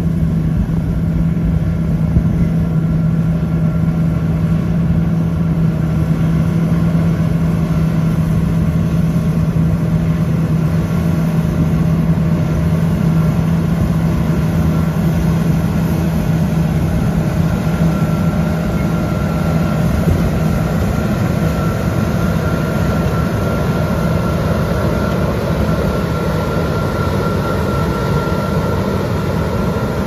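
John Deere T660i Hillmaster combine harvester running steadily: a low engine drone over dense machine noise, with a higher steady whine coming in about two-thirds of the way through.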